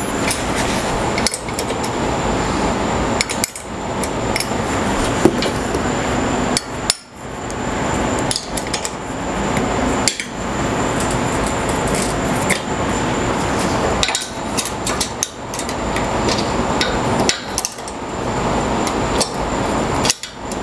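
Hand-tool work on the steel wheel-kit brackets of a router table stand: continuous metallic clattering and knocking as the bracket bolts are adjusted and tightened, broken by short pauses every few seconds.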